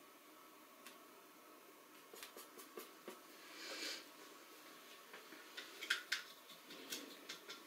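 Faint paintbrush strokes on canvas, with a soft swish of the brush about halfway through, among scattered light clicks and taps.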